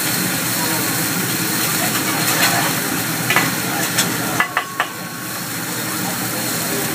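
Steady sizzle and hiss from a hot hibachi griddle as oil and food burn in an onion volcano, with a few sharp clicks near the middle.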